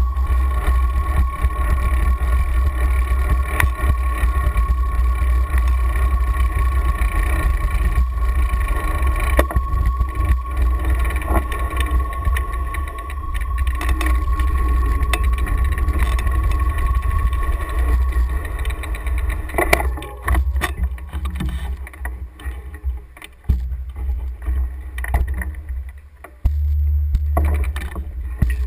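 Wind buffeting the microphone of an action camera on a moving bicycle, a heavy low rumble with a thin steady whine above it. About twenty seconds in it dies down into uneven gusts and a few knocks as the bike slows to a stop.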